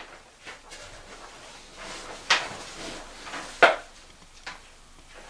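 Knocks and bumps of a person sitting down and settling, with some rustling: four sharp knocks, the loudest about two and a third and three and two-thirds seconds in.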